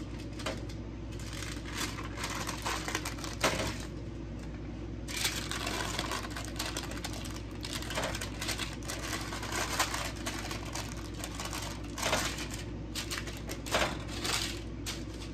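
Gloved hands folding and pressing parchment paper around a soft slab of melted HDPE plastic: scattered paper crinkles and light clicks, with a denser rustle about five seconds in, over a steady low hum.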